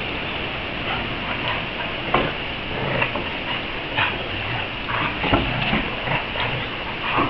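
Several dogs playing together, with short dog sounds now and then, about once a second, over a steady background hiss.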